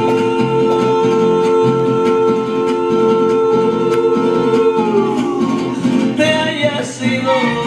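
Latin American heartbreak song with a singer and guitar. The singer holds one long note for about five seconds, then lets it slide down over the plucked guitar accompaniment.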